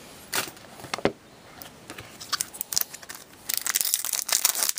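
Trading cards and crinkly plastic being handled by hand: a few sharp snaps and taps in the first second, then scattered crackles building to a dense stretch of plastic crinkling near the end.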